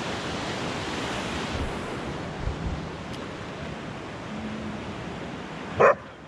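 Steady rushing of a waterfall, which turns duller about a second and a half in. Near the end a dog gives a single short, loud bark.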